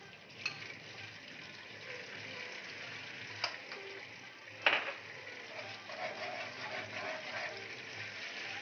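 Butter sizzling in hot oil in a wok, the sizzle growing louder as it melts. Two sharp knocks, the louder a little under five seconds in.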